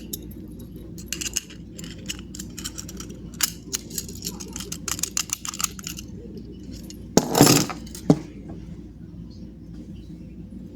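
Quick irregular metallic clicking and scraping as a wire rake is worked in and out of a disc padlock's keyway. About seven seconds in comes a louder clatter, then one sharp click.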